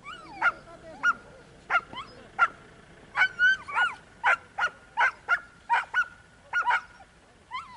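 Tazi sighthounds yelping and whining in short, high-pitched cries, about two a second, with a thin whine held between some of them.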